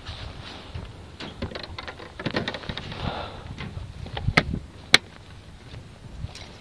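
Handling noise: scattered clicks, knocks and rustling, with one sharp click about five seconds in.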